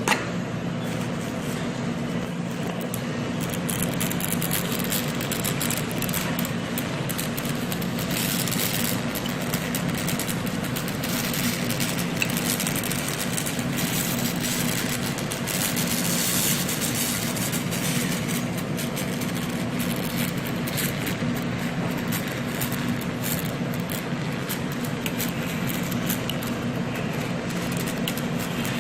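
Pulsed laser welding machine at work: a steady machine hum with a dense, irregular crackle of clicks over it.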